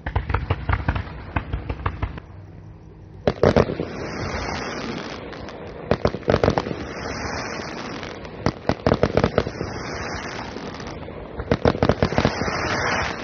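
Fireworks going off: clusters of sharp crackling pops about every two and a half seconds, with a steady fizzing hiss in between.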